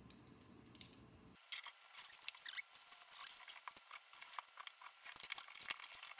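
A cardboard shipping box being cut open and its flaps pulled apart: a run of faint, irregular scrapes and clicks that starts about a second and a half in.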